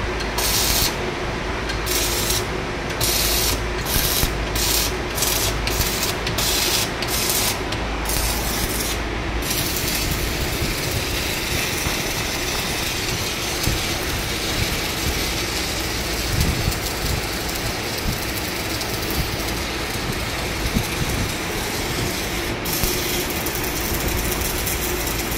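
Stick (MMA) welding arc on a 3.2 mm E6013 rod, crackling and hissing, drawing roughly 140–150 A. For about the first ten seconds it sputters in short spurts, then it burns with a steady crackle.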